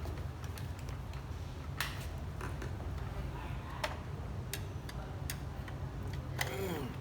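Scattered small clicks and taps from tools and cable being handled, over a steady low hum. A short scraping sound falling in pitch comes near the end.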